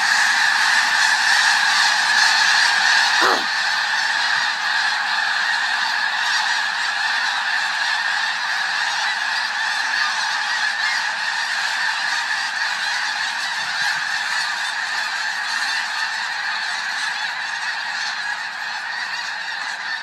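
A huge flock of snow geese calling in flight, a dense, steady mass of overlapping honks. About three seconds in there is a single thunk, which the filmer takes for a bird dropping landing on her head.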